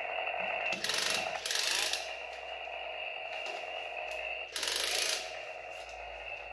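Toy Husqvarna 550XP Mark II chainsaw running: its small battery motor and plastic chain give a steady ratcheting, gear-like clatter, with three short louder bursts about a second in, at a second and a half, and near five seconds.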